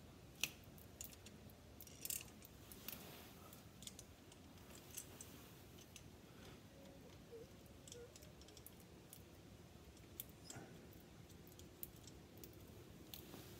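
Faint, scattered clicks and light metal taps of a bolt being fitted and turned by hand into a clamp plate on a driveshaft, against near silence.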